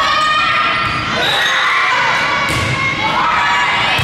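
Girls shouting and cheering at a volleyball match, with drawn-out calls that rise and fall in pitch about a second in and again near three seconds in.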